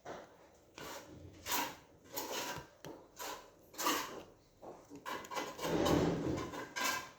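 Plastic model-kit parts being handled, rubbed and pressed together: a string of short scraping and clicking sounds, with a longer, louder scrape near the end.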